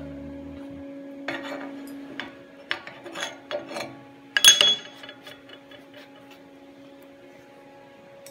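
Steel on steel clinks and knocks as the welded test plate and rod are handled on a steel welding table, the loudest a ringing clank about four and a half seconds in. A steady electrical hum runs underneath.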